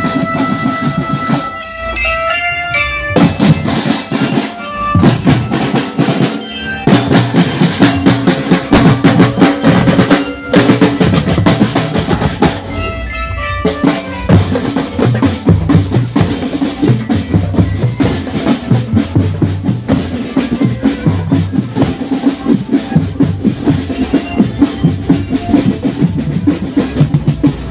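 Loud drum-heavy music with a fast, steady beat: held melodic notes over the first few seconds, then dense drumming with bass and snare drum, breaking off briefly twice before picking up again.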